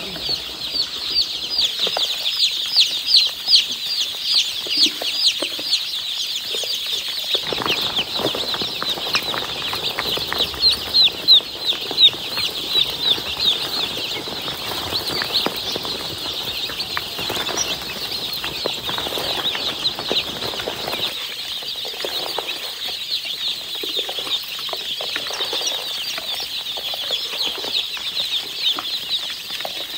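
Many newly hatched chicks peeping at once: a steady stream of short, high, falling chirps overlapping one another.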